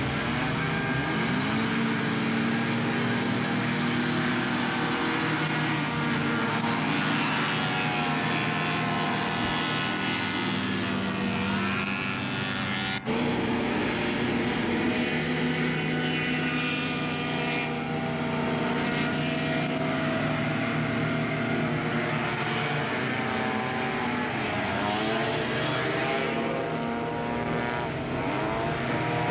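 Several racing hovercraft engines and propellers running together, their pitch rising and falling as they rev and pass. A brief dropout about 13 seconds in.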